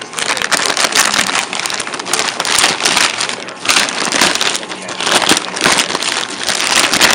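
Packaging being unwrapped by hand: a dense, continuous crinkling and rustling crackle with many sharp crinkles.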